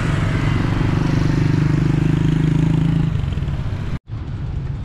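A motor vehicle's engine running close by, a steady note that drops away about three seconds in. It is followed by a brief cut to silence and then quieter street sound.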